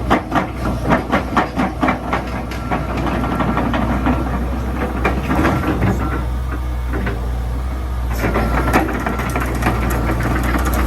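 Komatsu PC120-8 excavator's diesel engine running steadily, with a quick run of knocks, about four or five a second, over the first two seconds and a few more near the end.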